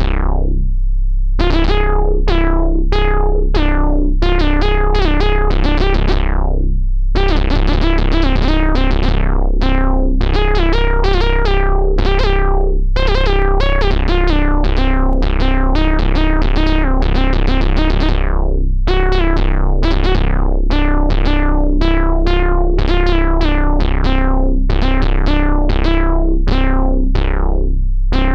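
Synthesizer keyboard music: a run of struck, decaying electric-piano-like notes over a steady deep bass tone.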